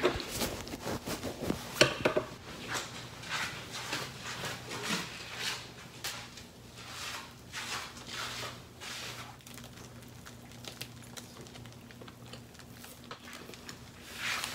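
Sheets of paper rustling and light handling knocks, irregular and soft, over a low steady hum that comes in about halfway.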